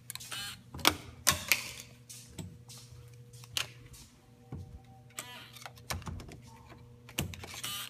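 Plastic keycard tapping and clicking against an electronic door lock while the metal lever handle is worked: a string of irregular sharp clicks and knocks. A short beep sounds about four and a half seconds in.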